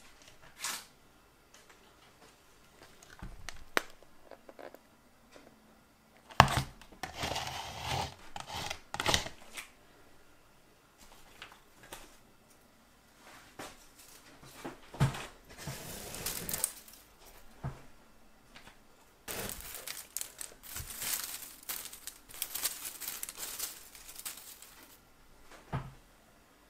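Paper crinkling and rustling in several bursts as party streamers and decorations are laid out on a wooden table, with a few light knocks of objects being set down.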